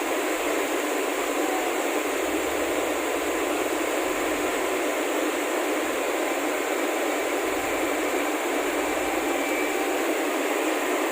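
Steady, even hiss with no pitch, rhythm or separate knocks, unchanged throughout.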